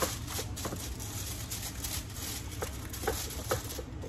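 Scattered light taps and clicks, as of kitchenware being handled, over a steady background hiss.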